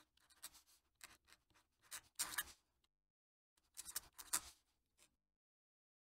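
Fountain pen nib scratching faintly across paper in quick cursive strokes. The strokes come in two runs with a short pause about three seconds in, where the pen lifts between words.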